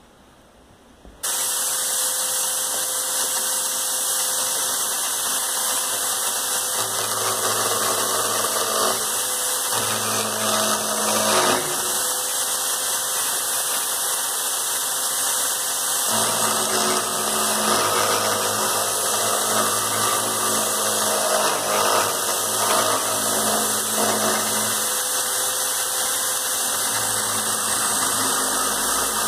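Electric hand drill clamped in a vise, switched on about a second in and then running steadily, spinning a wooden drawer-pull blank. A wood chisel is held against the spinning wood to turn it like a lathe, and at times a lower hum joins the drill's steady whine.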